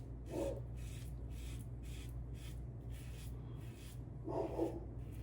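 Single-edge safety razor (Tatara Amakuni with a Kai Captain Titan blade) scraping through lathered stubble in short, quick strokes, about two to three a second. Two brief soft low sounds come near the start and about four seconds in.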